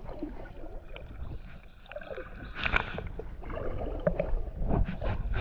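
Kayak paddle dipping and splashing in the water, several short splashes over a steady low rumble.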